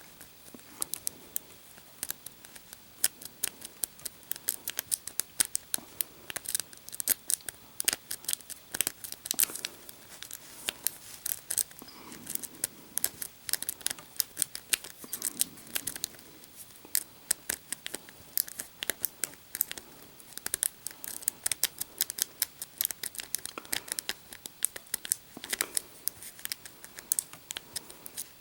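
Lock picks working a Master Lock No. 1 pin-tumbler padlock: a wave rake scraping and clicking over the pins under light tension from a turning tool, in quick, irregular metallic clicks and scratches.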